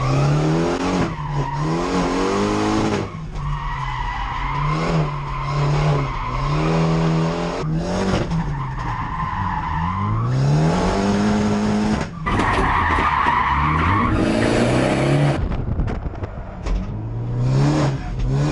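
Drifting Hyundai Genesis Coupe heard from inside the cabin: the engine revs up and down again and again while the tyres squeal in long stretches, the loudest squeal coming about two-thirds of the way through.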